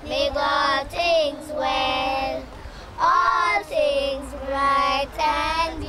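Children singing together, a song in short phrases of held notes.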